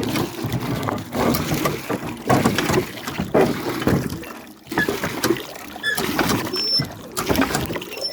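Water splashing and sloshing in irregular surges, as water is scooped up and poured by hand.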